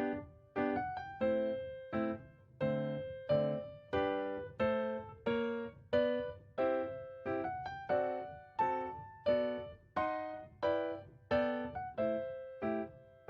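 Background music: solo piano or electric piano playing a steady run of chords, each note struck and fading, about one and a half a second.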